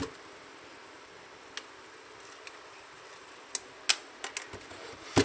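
Handling noise from a Vifa Oslo speaker being worked on: a handful of short, sharp plastic clicks and taps, the loudest a little under four seconds in and another at the very end, over a steady faint hiss.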